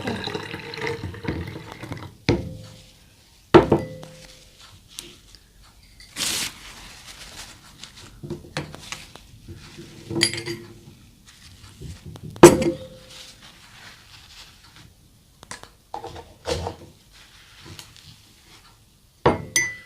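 Glassware and cups clinking and knocking: a scattered run of sharp strikes, two of them louder with a short ring, as the ingredients of a drink are combined in a large glass.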